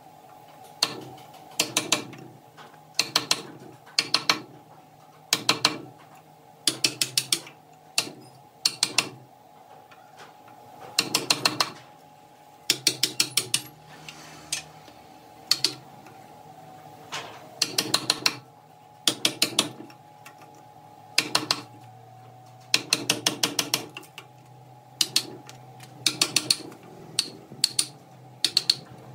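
Mechanical clicking in short runs of several quick clicks, like a ratchet being worked, repeating at uneven gaps of one to two seconds over a steady low hum.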